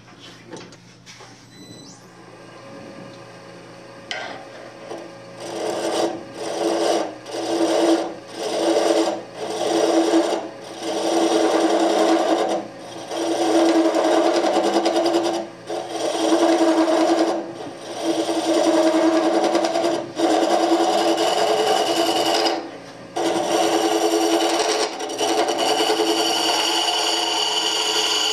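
A woodturning tool cutting into the end grain of a spinning wooden blank on a lathe, hollowing it out. After a few quiet seconds the cutting comes in repeated passes of about a second each with short breaks, running almost without a break near the end.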